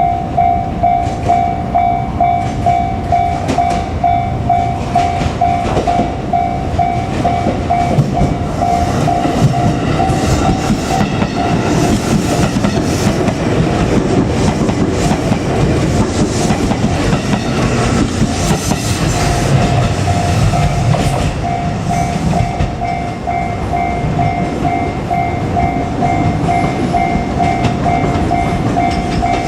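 Level-crossing warning bell ringing in quick repeated strokes, about two a second, as a JR Kyushu 787-series electric train runs past with wheels clattering over the rail joints. The train noise rises and drowns out the bell for several seconds in the middle, then the bell is heard again.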